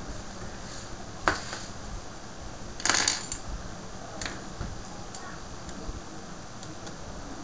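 Small metal hand tools (tweezers and a screwdriver) clicking and clattering as they are put down on a wooden workbench: a sharp click about a second in, a louder clatter about three seconds in, then a few lighter taps.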